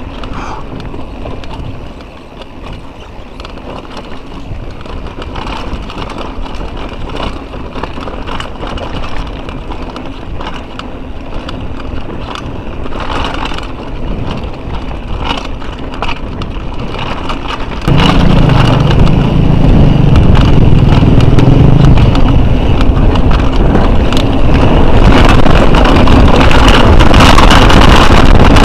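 Mountain bike rattling and knocking as it rides over a rocky singletrack, with many quick clicks and clanks from the bike and a steady noise of tyres and air. About 18 seconds in, the noise jumps much louder with a deep rumble that continues.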